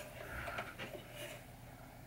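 Faint clicks and light rustling from hands working the small metal parts of a pinball chime box, with a few soft clicks in the first second or so. A low steady room hum sits underneath.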